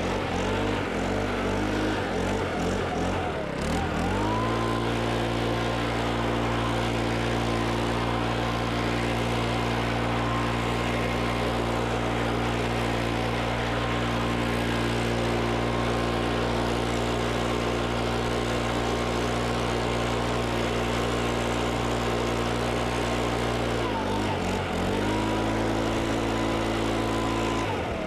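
Small four-stroke lawn-tool engine revving up to full throttle about four seconds in and holding a steady high speed, with a higher whine that follows the revs. The revs dip briefly and come back up once near the end.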